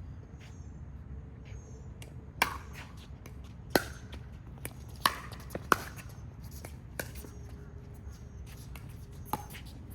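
Pickleball rally: paddles striking the hollow plastic ball, with about six sharp pops roughly a second or so apart, and softer ticks between them.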